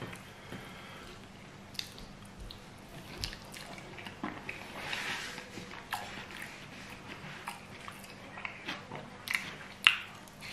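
A person eating fried sweet potato and scrambled egg with his fingers: chewing and wet mouth smacks, with small clicks as food is picked off the plate. The loudest smack comes near the end as a piece goes into the mouth.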